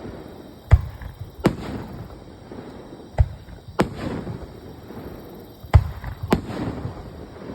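Aerial fireworks shells bursting: six sharp booms in three pairs about two seconds apart, with a rumbling haze between them.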